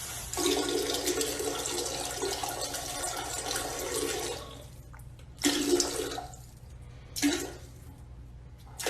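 Water rushing steadily for about four seconds, then dying away, followed by three short separate bursts of sound.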